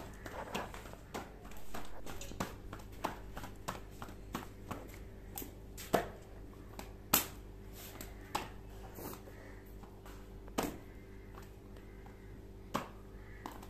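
Hands patting and slapping aloo paratha dough between the palms: a string of sharp claps at irregular intervals, a few much louder than the rest.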